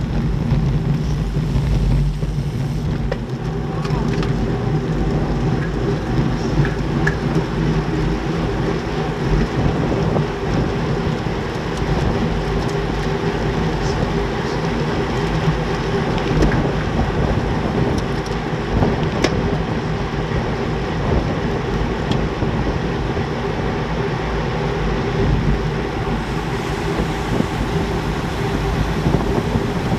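Wind rushing over the microphone of a bicycle-mounted camera riding in a racing peloton at speed, with steady tyre and road noise underneath.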